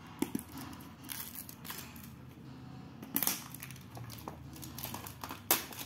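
Scissors and fingers working at a tightly sealed paperboard box, cutting and prying it open: scattered snips, scrapes and crinkles, with a sharper rasp about three seconds in and another near the end.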